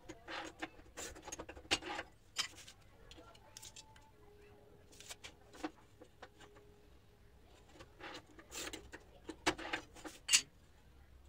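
Manual rail tile cutter working a ceramic tile: clusters of scraping strokes and clicks as the tile is shifted and scored along the rail, with a sharp crack near the end, the loudest sound.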